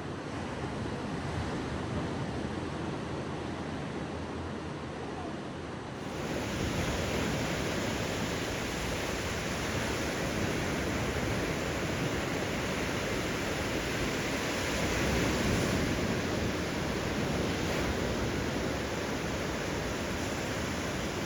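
Ocean surf washing steadily onto the beach. About six seconds in, it changes abruptly to a louder, fuller wash.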